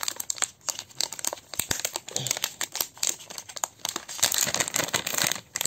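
Plastic and paper packaging crinkling and rustling as it is handled and pulled open, with many small crackles and a little tearing.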